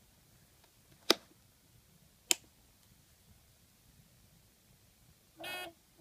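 Two sharp clicks a little over a second apart: the safety cover over a toggle switch is flipped up and the switch is thrown. Near the end the panel's buzzer starts a repeating low beep, the arming warning.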